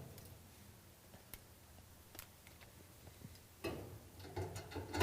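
Faint, scattered metal clicks and taps from a dryer's sheet-metal guard plate and its screws being handled and fitted back over the heating element, getting busier and louder a little over halfway through.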